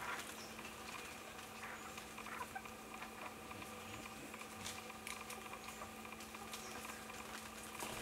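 Faint soft ticks and rustles from a female Kalij pheasant drinking and moving its bill among the leaf litter, over a steady low hum.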